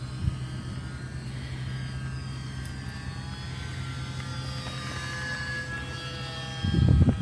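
Electric motor and propeller of an E-flite UMX Gee Bee R2 micro RC airplane whining faintly overhead, its pitch drifting up and down as it flies around. A steady low hum runs underneath, and a brief loud low rumble comes near the end.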